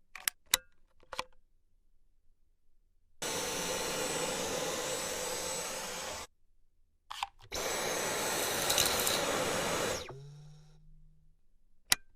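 Cordless stick vacuum running twice for about three seconds each, a rushing airflow noise with a thin high whine, each run starting and stopping abruptly. A few sharp clicks fall between the runs.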